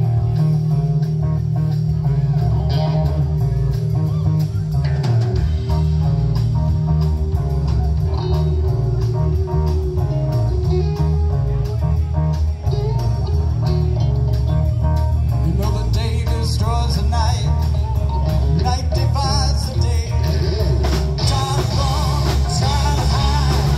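Live band playing loud amplified rock with a blues feel: electric guitars over bass guitar and drum kit.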